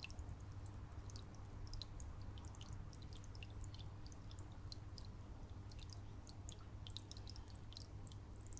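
Faint aquarium water sounds: water trickling at the surface from the filter return, with many small high drips and plinks, several a second, over a steady low hum.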